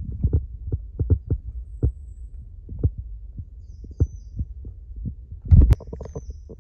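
Irregular low thuds and rumbling from the camera being jostled while carried along a trail, with a louder cluster of knocks and a sharp click about five and a half seconds in.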